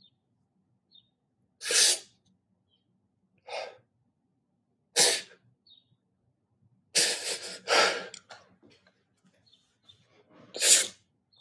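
A person breathing close to the microphone: about six short, noisy breaths or sniffs spaced a second or two apart, with quiet between them.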